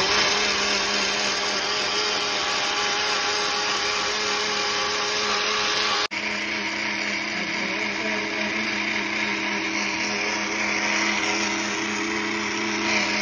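Countertop blender running steadily with a full jar of creamy liquid, its motor giving a constant pitched whir. The sound breaks off for an instant about six seconds in, then carries on.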